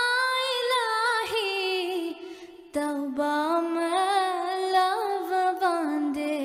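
A solo female voice sings a Dhivehi madhaha, a devotional song, in long melismatic phrases with no audible accompaniment. There is a short breath pause about two seconds in, and the second phrase fades near the end.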